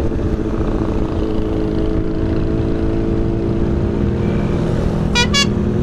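Honda CBR600RR inline-four engine running at a steady cruise, under a constant low rumble of wind and road noise on the bike-mounted microphone. Two short horn beeps come near the end.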